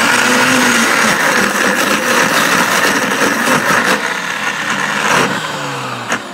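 Ninja Chef high-speed countertop blender running loud on its ice cream program, its blades churning ice and vanilla creamer in a mix too thick for lack of liquid. About five seconds in the motor stops and winds down with a falling hum.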